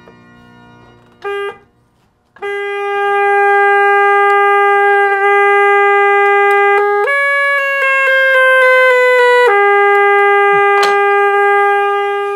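An organ reed pipe with a newly cast resonator being sounded on the voicing bench during pre-voicing, to check its pitch against the expected G-sharp. After a short blip it holds a loud, steady reedy tone. Partway through, the pitch jumps up and slides gradually back down, then it returns to the first pitch and holds until it stops.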